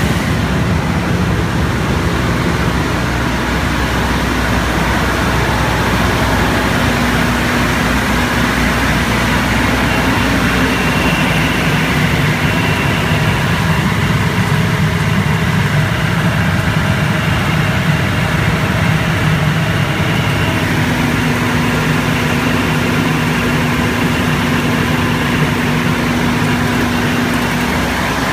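Aircraft ground air-conditioning unit (AC 2030DE) running steadily: a continuous engine and blower noise that holds at one level.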